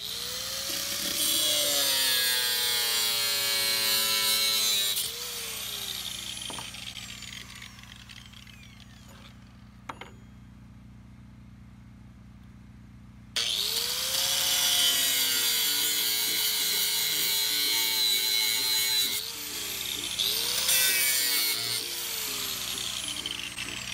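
High-speed power tool cutting for about five seconds, then winding down. After a quieter stretch with a single click, a Makita angle grinder starts suddenly about thirteen seconds in and cuts metal strap, winding down and picking up again twice near the end.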